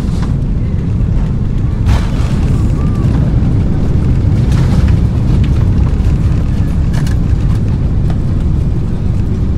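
Airbus A330-300 heard from inside the passenger cabin: a loud, steady low rumble of engines and airflow, with a few faint knocks or rattles.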